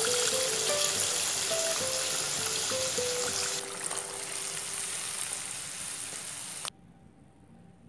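Whole tilapia deep-frying in hot oil in a wok, a dense steady sizzle that cuts off suddenly near the end. A simple background melody plays over it.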